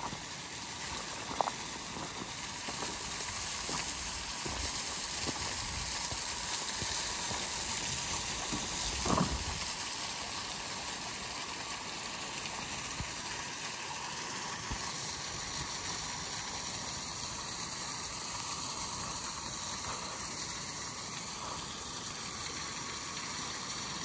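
Steady rushing hiss of water on a beach, with a brief louder thump about nine seconds in.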